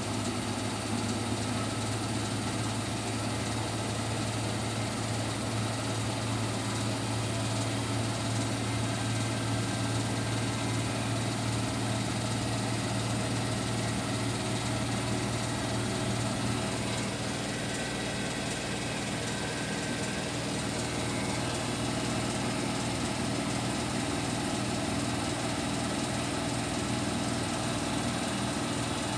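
Bosch Serie 6 front-loading washing machine running a cotton 60° wash cycle: a steady, even motor hum with a low drone.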